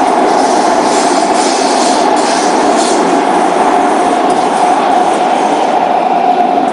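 Singapore MRT train running between stations, heard from inside the car. A steady traction-motor whine sits over wheel and track rumble, with short hissing rushes in the first few seconds. The motor sound is what the uploader calls a bad motor sound.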